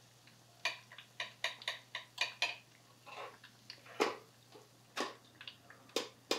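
Battered food frying in hot oil in small electric deep fryers: irregular sharp crackles and pops, the loudest about four and six seconds in.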